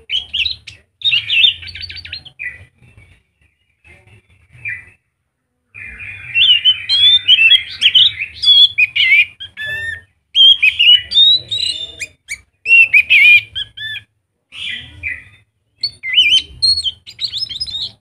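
Anis macan thrush in full song: a loud, varied run of rapid whistled and chattering phrases, with a few short pauses and the most continuous, densest singing in the middle.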